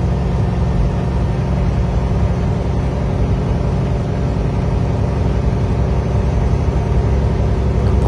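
Steady engine and road rumble heard from inside a moving vehicle's cab, with a constant low hum.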